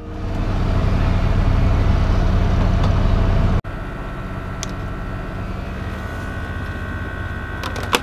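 Vehicle engine running, heard from inside the cab. After a cut about three and a half seconds in, a quieter steady engine idle with a faint high whine, in the cockpit of a Class A diesel pusher motorhome.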